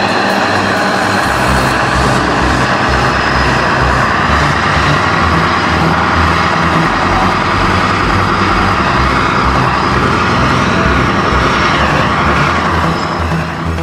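Scania R500's V8 diesel with an open straight-through exhaust, running steadily as the truck hauls a loaded semi-trailer: a deep, continuous rumble. It drops away just before the end.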